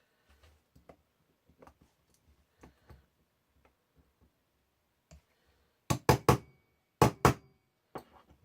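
Sharp metal taps of a punch being struck to drive the hammer and sear pins out of a Smith & Wesson 469 pistol frame: faint handling clicks, then a quick run of three taps, two more a second later, and a lighter one near the end.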